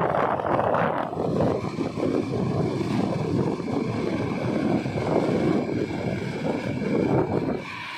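Air conditioner fan running, its airflow rushing and buffeting unevenly against the microphone, then dropping away sharply near the end to a quieter hum with a faint steady high whine.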